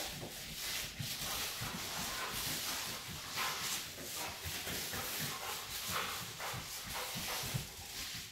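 A Rottweiler sniffing hard in quick, repeated bursts as it works a scent search along the floor and baseboards, with soft footsteps on carpet.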